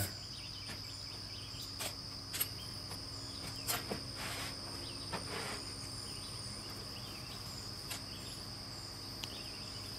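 A few light clinks and knocks of steel strips and locking pliers being handled on a steel welding table, over a steady faint high-pitched whine and a low hum.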